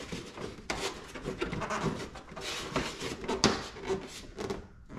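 A carbon fiber fender flare being pressed and worked by hand onto a car's wheel-arch lip and wheel liner: irregular rubbing and scraping with scattered clicks and creaks, and one sharp click about three and a half seconds in.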